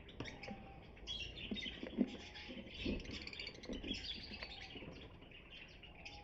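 Lovebirds chirping, many short high chirps overlapping, with a few soft knocks about two and three seconds in.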